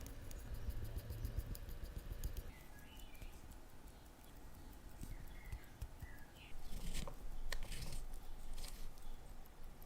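Faint scattered clicks and light taps of small tools and parts being handled at a watchmaker's bench, with a few short high chirps and a louder bout of handling noise past the middle.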